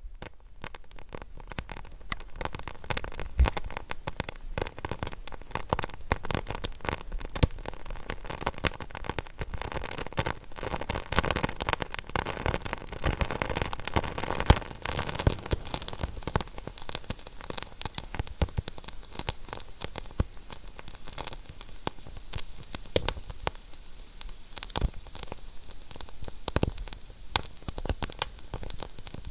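Wood fire burning with dense, continuous crackling and popping over a soft steady hiss, a little busier about halfway through.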